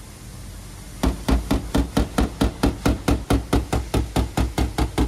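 Rapid, even hammer blows, about five a second, starting about a second in: a body-shop hammer beating out a dent in a car's sheet-metal body panel.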